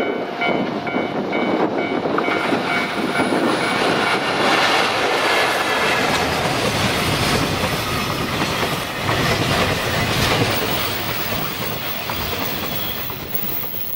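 Freight train of container wagons, hauled by an EF65 electric locomotive, passing close by with the clatter of wheels over rail joints. The noise swells about four seconds in and fades toward the end, with a repeating high ringing in the first two seconds.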